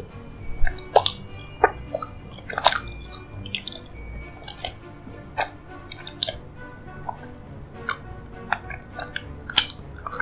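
Close-miked eating sounds: wet mouth clicks and smacks of someone chewing a soft, creamy dessert, coming irregularly every half second to second, over quiet background music.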